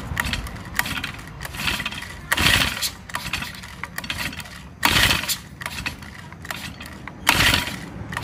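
Honda GX50 four-stroke brush-cutter engine being pull-started on its recoil starter: three pulls about two and a half seconds apart, and it does not catch. The mechanic notes the compression is weak.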